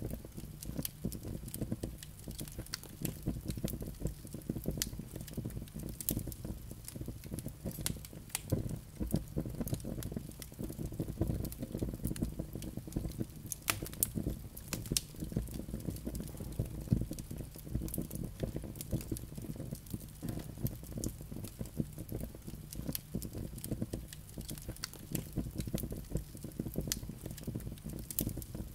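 Wood logs burning in a fireplace, crackling with many irregular sharp pops and snaps over a low steady rumble of the flames.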